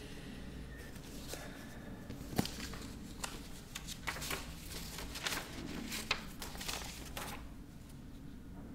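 Packaging being handled as a foam insert is lifted out of a cardboard box: scattered rustles, scrapes and light clicks, the sharpest about two and a half seconds in, dying down near the end.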